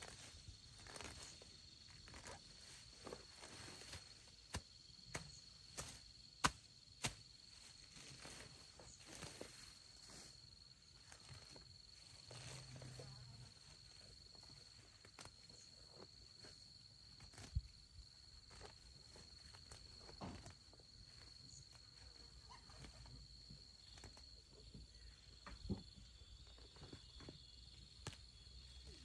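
A faint, steady high-pitched insect drone, with scattered sharp clicks and knocks at irregular intervals, the loudest about six seconds in and near eighteen seconds.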